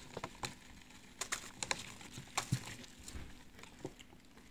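Faint, scattered light taps and rustles in a small terrarium lined with dry leaves and cork bark as feeder crickets are dropped in and land.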